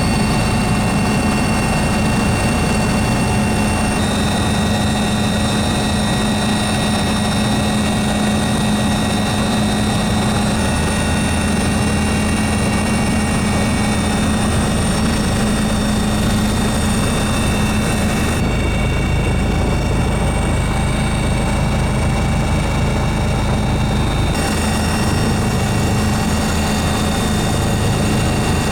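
Helicopter engine and rotor noise heard from aboard the helicopter: a loud, steady drone with a low hum and a high whine. Its tone shifts abruptly about 4 seconds in, and again for several seconds past the middle, where the low rumble grows and the high whine drops away.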